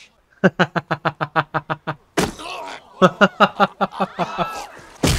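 A man laughing hard in a fast run of ha-ha bursts. Loud punch thuds from a film fight scene land about two seconds in and again near the end.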